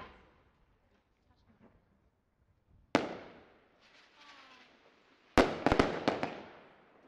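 Aerial firework shells bursting: one sharp bang about three seconds in that echoes away, then near the end a loud bang followed by a quick string of four or five more.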